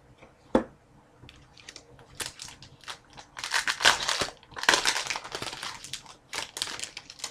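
Foil trading-card pack wrapper crinkling and crackling as it is handled, in irregular bursts that are loudest in the middle, after a single sharp click about half a second in.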